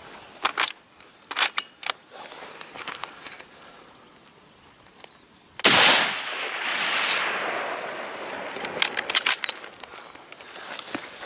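A single rifle shot, its report rolling away in a long echo over a few seconds. No thump of a bullet strike follows, which the hunters take for a clean miss. Sharp clicks and knocks come before and after the shot.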